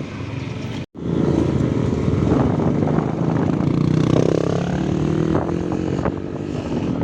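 Motorcycle engine running under way, its pitch rising and falling in the middle as the rider changes speed, with wind rushing over the microphone. The sound cuts out completely for a split second just under a second in.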